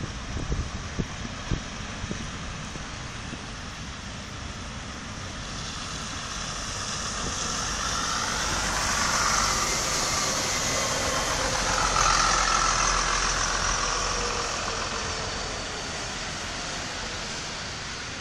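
City bus driving past close by: engine rumble and tyre noise swell to a peak about halfway through, then fade as it pulls away.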